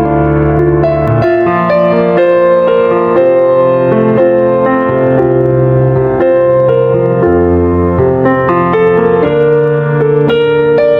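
Slow piano music with sustained notes and chords that change about once a second.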